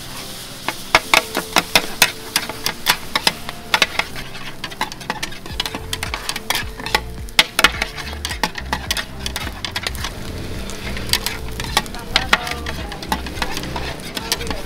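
Two metal spatulas clattering and scraping on a large flat wok as char koay kak, wok-fried rice cake with bean sprouts, is stir-fried, over a steady sizzle. The strikes come several a second, busiest in the first few seconds and again near the end.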